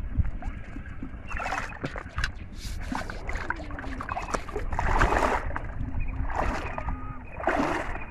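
Shallow water splashing and sloshing around a person's legs as he wades, in surges every second or two, the loudest about five seconds in.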